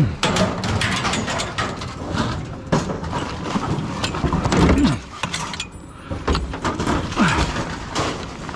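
Scrap metal clattering and scraping as it is handled and unloaded, with many sharp knocks and a few short falling screeches of metal dragging on metal.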